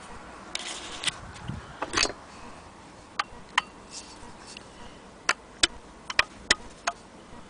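An antique Willcox & Gibbs hand-crank sewing machine being handled and turned by its crank. There are a few scrapes in the first couple of seconds, then scattered sharp metal clicks at uneven intervals.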